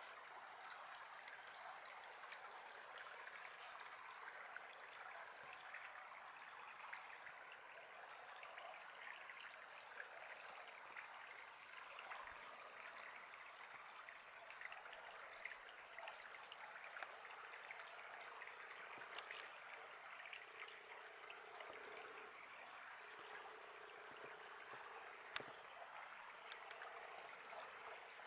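Shallow canyon creek trickling over stones, a faint, steady babble, with a single sharp click near the end.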